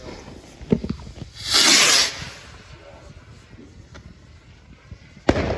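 A firework igniting with a short, loud hiss about a second and a half in that lasts under a second, followed by a few faint ticks.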